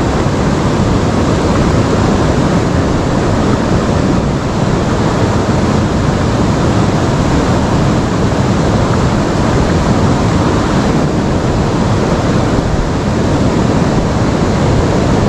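Steady rushing of river water flowing over stones, an even, unbroken noise.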